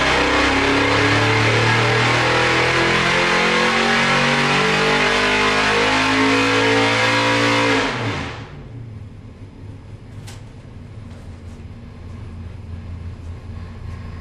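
Carbureted small-block Chevy 415 stroker V8 race engine making a full-throttle dyno pull, its revs climbing steadily for about eight seconds. Then the throttle is chopped and the sound drops suddenly to a much quieter low hum.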